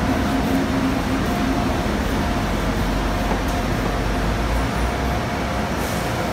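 Escalator running: a steady low mechanical rumble with a faint steady tone.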